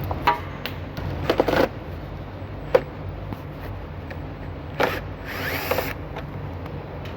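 Power drill run in several short bursts, with sharp clicks in between, as it works a fastener off the car.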